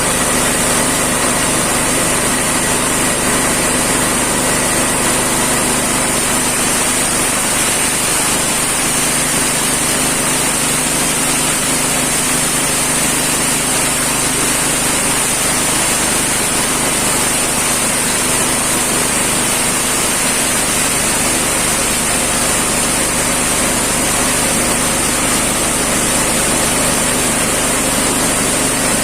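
Livestock forage chopper machine running steadily: a continuous, even machine noise with a steady high whine.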